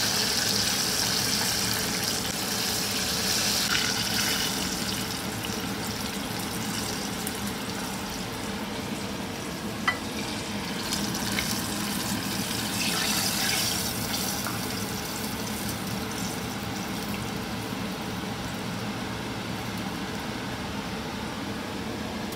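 Breaded chicken drumsticks deep-frying in a pot of hot oil: a steady sizzling hiss that eases slightly as it goes on, with a single sharp click about ten seconds in.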